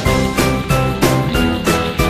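Background music with a quick, steady beat and bright tinkling notes on top.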